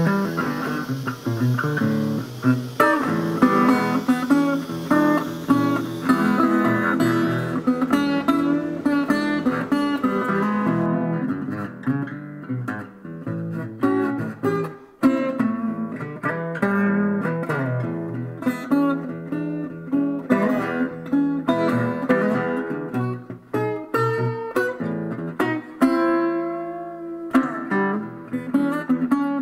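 A resonator guitar being picked, playing a tune of single notes and chords.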